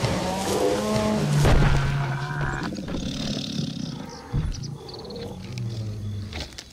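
Deep animal roars and growls, loudest about one and a half seconds in, with a weaker growl again near the end.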